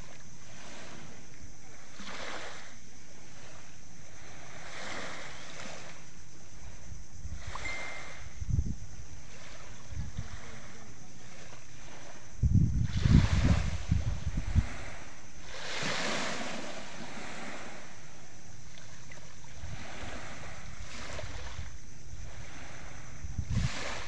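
Small waves lapping and washing onto a pebble shore, swelling every couple of seconds. Wind buffets the microphone with low rumbles: briefly about eight seconds in, and for a couple of seconds around the middle.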